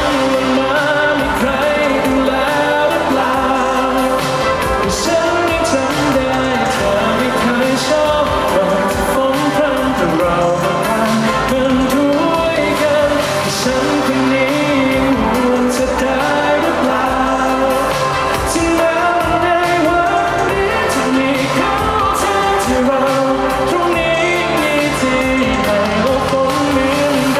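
Male singer performing a Thai pop song live over amplified pop backing music with a steady drum beat.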